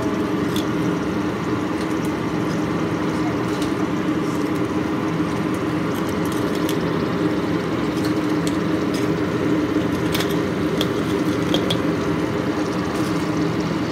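Sweet potato slices frying in a wok of hot oil: a steady sizzle over a steady low hum, with a few faint clicks.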